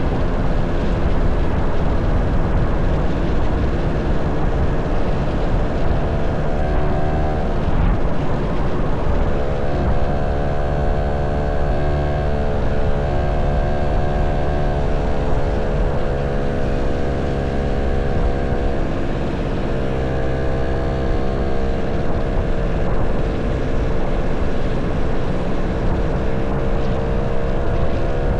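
Motorcycle engine running while riding, its pitch rising, holding and dropping with the throttle several times, over a heavy low rumble.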